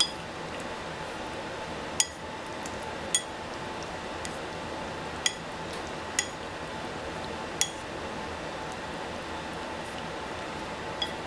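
Wooden chopsticks clinking against a ceramic bowl while mixing chicken pieces in a marinade: about seven sharp, ringing taps at uneven intervals over a steady background hiss.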